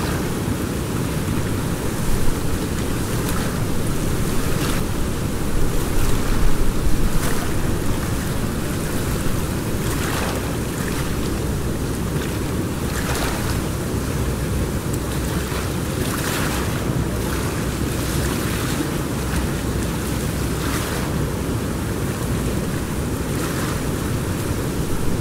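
Steady rush of river water, with a few brief louder splashes now and then.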